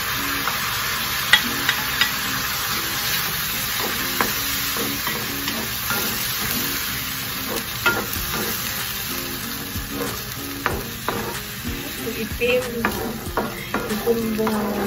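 Squid rings in squid ink sauce sizzling in a frying pan while a wooden spatula stirs them, with frequent clicks and scrapes of the spatula against the pan, more of them in the second half.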